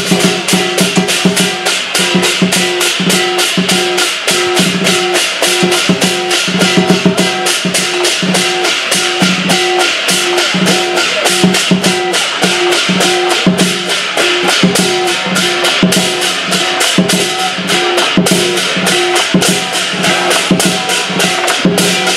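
Southern Chinese lion dance percussion: a big drum with clashing cymbals and gong beating a fast, steady rhythm of about five strokes a second.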